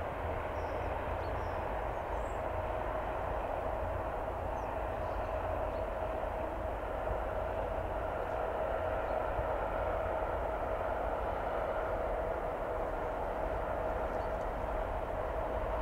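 A Class 66 diesel locomotive (two-stroke EMD V12) hauling a railhead treatment train approaches in the distance: a steady low rumble with a steady whine over it.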